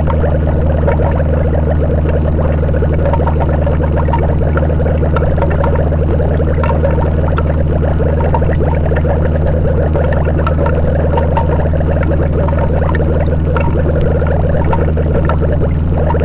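Noise music: a loud, unchanging wall of dense crackle over a steady low hum.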